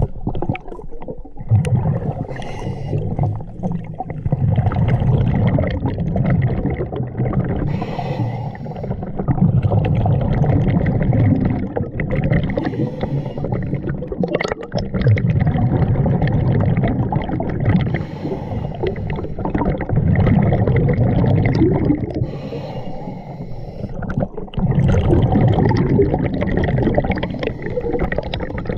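A scuba diver breathing underwater through a regulator: a low bubbling rush of exhaled bubbles, each lasting two to three seconds and coming about every five seconds, with quieter gaps between.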